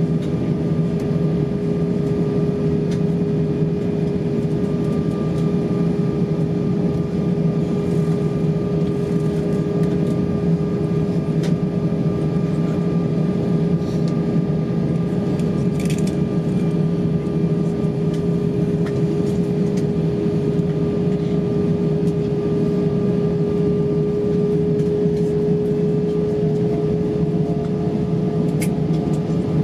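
Steady cabin noise inside an Airbus A320 at a standstill: a constant drone with a steady whine, plus a few faint clicks.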